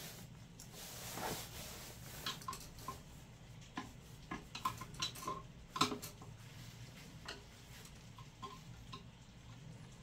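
Faint scattered clicks and taps of hands working on a boiler's circuit-board wiring and connectors, with a soft rustle about a second in and the sharpest click near six seconds.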